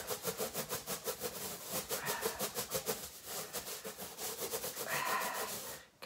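A rubber balloon rubbed rapidly back and forth on a person's hair: a fast, scratchy rubbing at about six strokes a second, which charges the balloon with static electricity.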